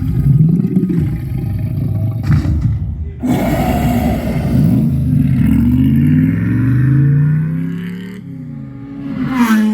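Movie sound effects played loud through a Sonos Arc soundbar and Sonos Sub: car engines revving over heavy deep bass, with abrupt cuts about three seconds in and again near the end.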